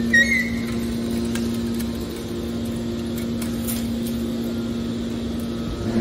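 Hydraulic metal baler's power unit running, a steady machine hum with a held low tone.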